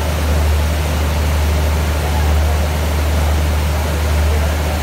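Stationary diesel passenger train running at the platform: a steady low drone with an even hiss over it.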